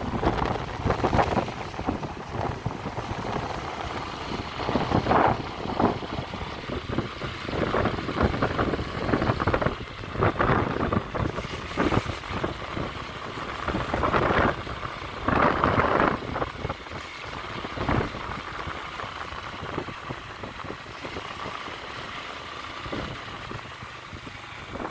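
Road noise from a moving vehicle, with wind buffeting the microphone in irregular gusts.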